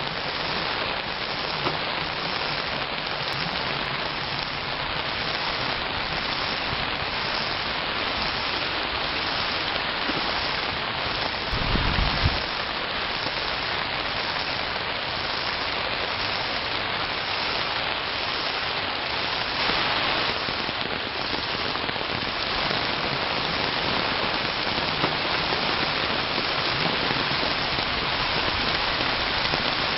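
Rain falling steadily in a storm, a dense even hiss of rain on the ground and surfaces, with a brief low rumble about twelve seconds in.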